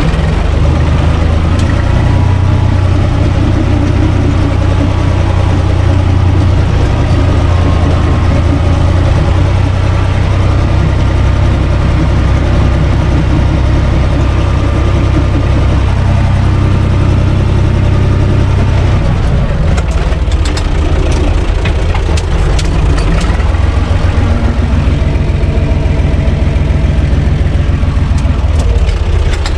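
Universal U445 DT 4x4 tractor's four-cylinder diesel engine running steadily, heard from inside the cab. About two-thirds of the way through, its note changes and a few clicks and rattles come in.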